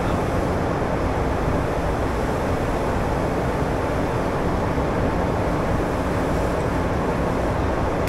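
Steady low rumble and rush of a Gulfstream G150 business jet's turbofan engines, heard inside the cockpit, with a faint hum underneath and an unchanging level.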